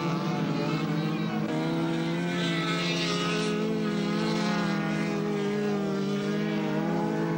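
Several race car engines running hard on an ice track, their pitch rising and falling with shifts and throttle changes.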